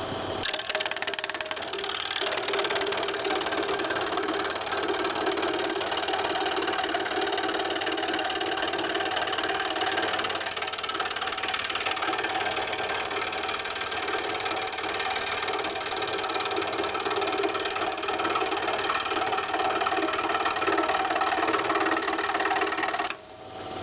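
Scroll saw running with its blade cutting through wood, a steady mechanical buzz. Near the end the cutting noise drops away sharply, leaving the saw running more quietly.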